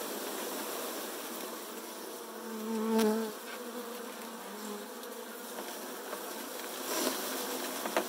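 A mass of Saskatraz honeybees buzzing steadily as the package is shaken out into the hive. About three seconds in, one bee buzzes louder and closer, its pitch wavering, then fades.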